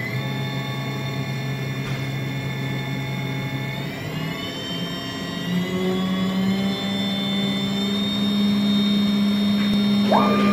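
CNC router spindle running with a steady whine, its pitch rising again about four seconds in as the spindle speeds up. Near the end the router's stepper motors whine up and down twice as the machine makes two axis moves.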